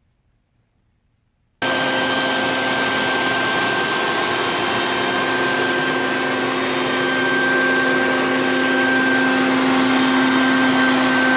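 An electric motor switches on suddenly and runs steadily with a whine over a hiss, getting a little louder about halfway through.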